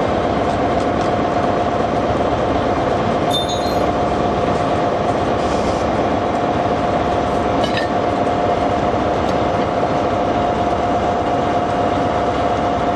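Diesel locomotive engine idling at a standstill: a steady, even drone with a constant whine over it. A couple of brief, faint metallic clinks come through about three and a half and eight seconds in.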